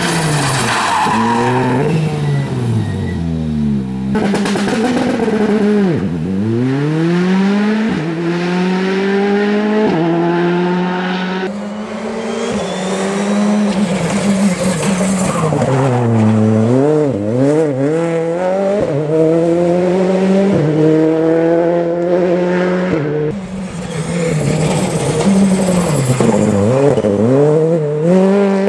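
Citroën C3 R5 rally car's turbocharged 1.6-litre four-cylinder engine driven hard, its revs climbing and dropping again and again through gear changes and braking as the car approaches and passes.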